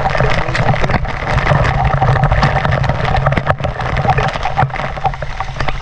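Loud rushing and splashing water, with gurgling and many small splashes and clicks over a steady low rumble.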